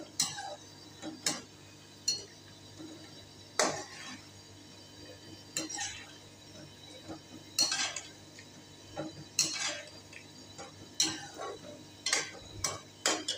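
A metal slotted spoon stirring a thick curry in a metal pan, scraping and clinking against the pan at irregular intervals.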